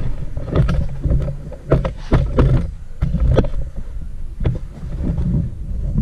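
Camera handling noise as the camera is picked up and repositioned: a low rumble on the microphone with a string of knocks and clicks.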